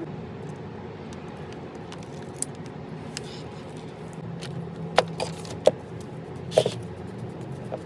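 Metal parts or tools being handled: three sharp clinks in the second half, with lighter ticks between, over a steady low hum.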